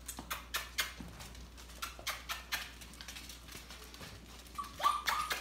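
Puppies' claws and paws clicking and pattering irregularly on a tile floor as a litter of basset hound puppies trots about. Near the end, a short rising high whine.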